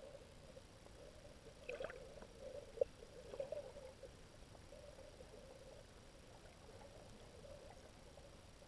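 Faint underwater ambience heard through a submerged camera's housing: a low steady hum with a few scattered clicks and crackles, the loudest a single sharp click just before three seconds in.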